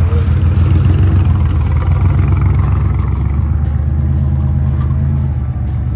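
Off-road vehicle's engine running steadily at low revs, a deep even hum that gradually gets quieter over the last couple of seconds.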